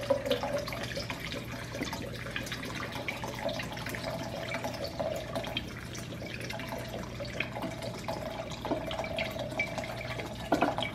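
Rum pouring steadily from a large glass bottle into a glass pitcher of ice, lime slices and mint syrup.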